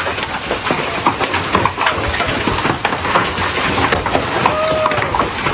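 Hailstones pounding down with heavy rain, a dense run of sharp, irregular impacts over a steady rushing noise. A short voice rings out near the end.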